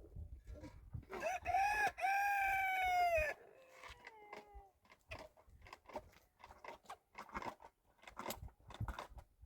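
A rooster crows once, about a second in: a short note, then a longer held note that drops off at the end, about two seconds in all. After it come scattered light clicks and knocks.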